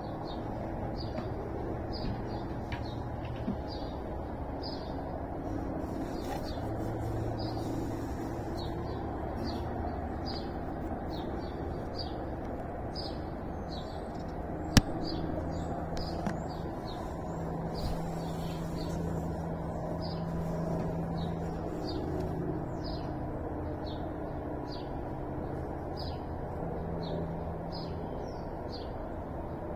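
A bird gives a short, high chirp over and over, about every half second, over a steady low hum. A single sharp click comes about halfway through.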